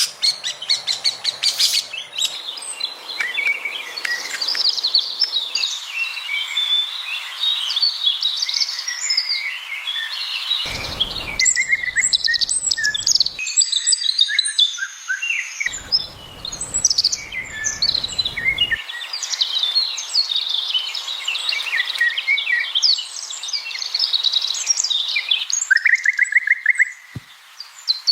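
Many small birds chirping and singing at once, with overlapping short calls and whistles. A low rumble comes in twice for a few seconds, and a quick rattling trill sounds near the end.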